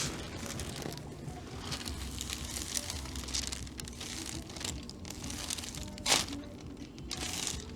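Rustling and crinkling of a person moving on a chiropractic treatment table, with one sharp click about six seconds in.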